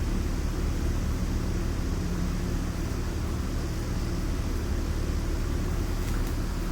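Honda CRF450R's single-cylinder four-stroke engine idling steadily, running again after being repaired from a no-start condition.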